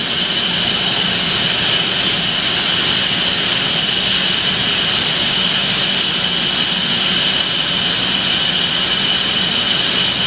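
Okuma & Howa 2SP-25HG CNC twin-spindle vertical lathe running with its spindle turning: a loud, steady whir with a high whine over it.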